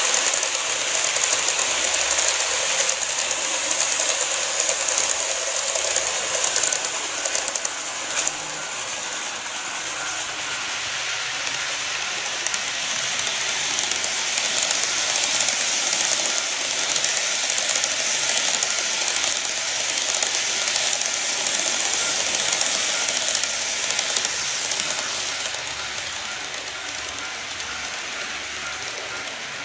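KATO N-scale model train (185 series) rolling along its track: a steady hiss of the wheels and motor, a little quieter near the end.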